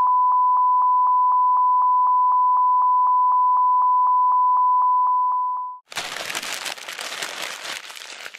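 Steady high-pitched electronic beep tone, one pure note with about four faint ticks a second, cut off suddenly about six seconds in; then a rough, uneven hiss of noise.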